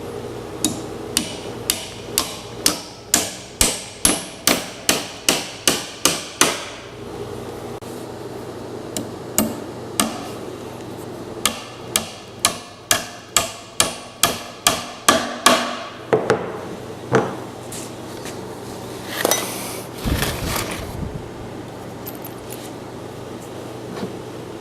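Hammer driving nails into a wooden box: two runs of quick, regular blows, about two to three a second, with a pause of several seconds between them, then a few scattered knocks and a dull thud.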